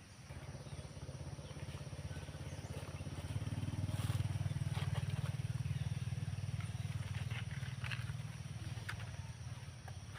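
Small motorcycle engine running close by with a low, pulsing hum that grows louder to about four seconds in, then slowly eases off.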